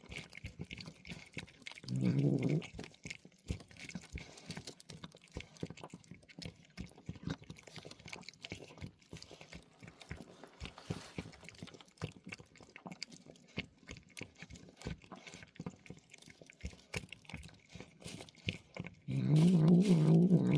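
Stray cats chewing dry food: many small crunching clicks. A short low cat growl comes about two seconds in, and a longer, louder one near the end.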